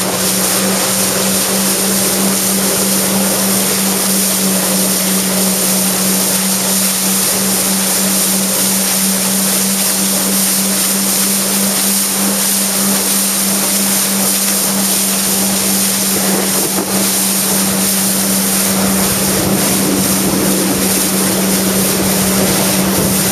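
Jet ski engine running at a steady pitch while underway, under a loud rushing hiss of wind on the microphone and water past the hull.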